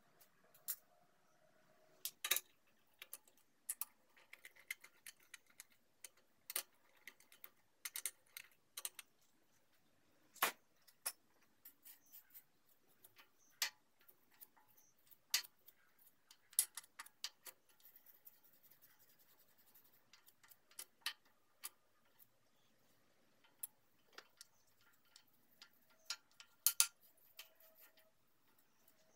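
Irregular sharp clicks and light taps, one or two a second, from hands handling small parts and a piece of filter media while fitting a custom-cut intake filter pad into a vintage Craftsman air compressor's pump head.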